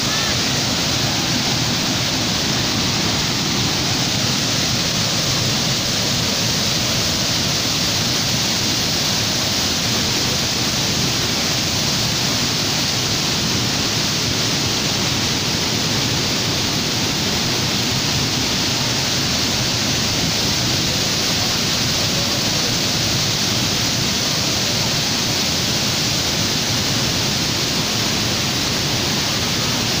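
A waterfall's loud, steady rush of falling water.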